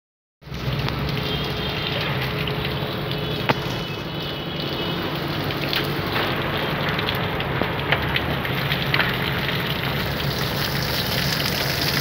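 Water jet from a hose spraying onto an air conditioner's outdoor condenser coil, a steady hiss of water with a constant low hum beneath and a few faint ticks, washing dust out of the coil.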